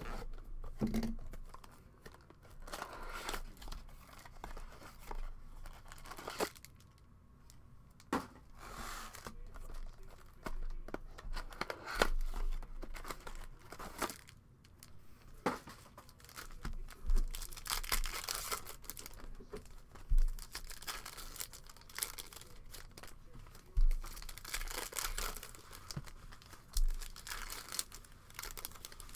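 Plastic shrink-wrap being torn and peeled off cardboard trading-card boxes, then a box flap opened and foil card packs crinkling as they are handled. Irregular crackling and rustling, with several sharp knocks along the way.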